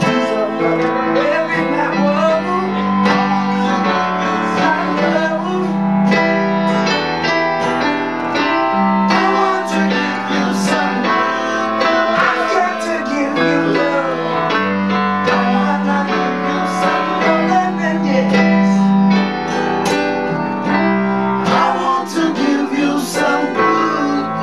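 A live acoustic band playing: an acoustic guitar strummed over piano chords, with a man singing.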